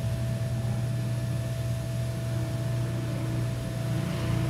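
A steady low hum with a faint, thin steady tone above it, unchanging throughout.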